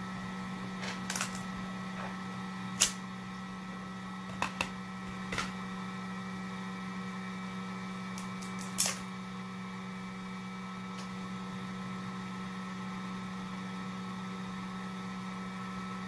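Small plastic clicks and snaps from a freshly 3D-printed wheel being popped off a flexible build sheet and worked between the fingers, several in the first nine seconds with the sharpest about three and nine seconds in. A steady low hum runs beneath.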